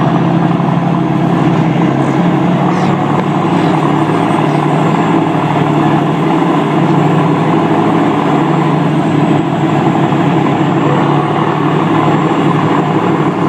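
Tugboat's diesel engine running steadily under load while towing a barge, heard close up from on board as a constant low hum.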